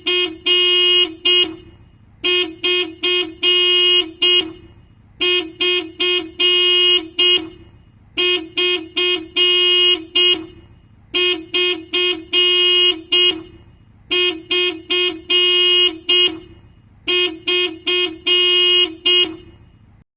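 Toyota car horn pulsed by a VIP RS3000 remote alarm system: the alarm is going off. It sounds a group of short toots and one longer blast, the group repeating about every three seconds, seven times, then cuts off.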